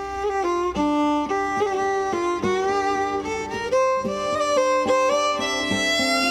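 Irish traditional music: a fiddle playing a melody over a rhythmic accompaniment.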